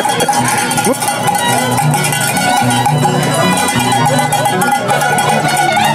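Live traditional Andean festival music with plucked and bowed strings, held notes over a stepping bass line.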